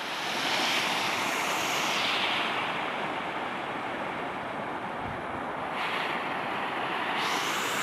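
Fast brown floodwater rushing over a flooded road embankment, a steady gushing like a small waterfall.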